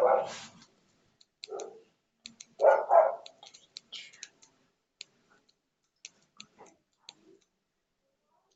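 A dog barking: one bark at the start and a quick pair of barks about three seconds in, with scattered light clicks between them.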